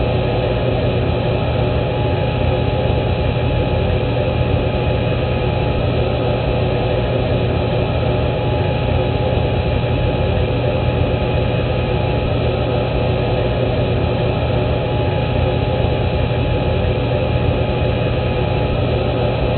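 Reconstructed cockpit voice recorder background noise: a steady, muffled hum with a few constant tones running through it and no high end, like an airliner cockpit heard through a CVR channel.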